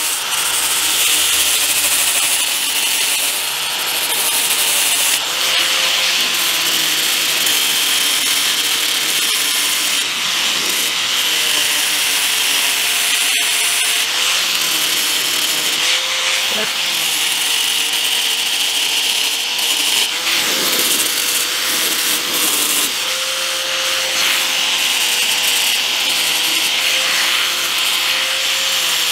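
Handheld electric angle grinder with a 60-grit flap disc running without a break, sanding down the edge of a clear plastic motorcycle windshield: a steady gritty rasp over the motor's whine, which wavers up and down in pitch.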